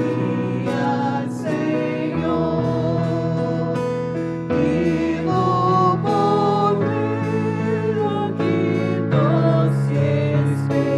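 A small worship group singing a hymn in Portuguese in slow, held notes, accompanied by a digital piano and an acoustic guitar.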